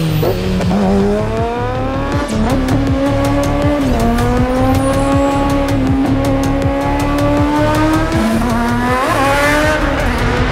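Kawasaki Z900's inline-four engine through a Zard aftermarket exhaust, pulling under acceleration: its note dips, then climbs in steps with sudden shifts in pitch, and rises sharply near the end. A music beat runs underneath.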